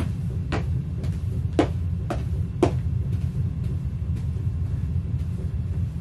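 Footsteps of sheepskin Ugg boots stomping on a carpeted floor: a few heavy stomps in the first three seconds, then lighter steps, over a steady low rumble.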